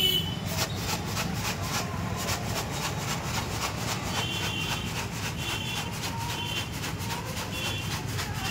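Jhalmuri (spiced puffed rice) being shaken and mixed in a container, a fast, even rattle of several strokes a second that runs on less regularly toward the end, over a low hum of street traffic.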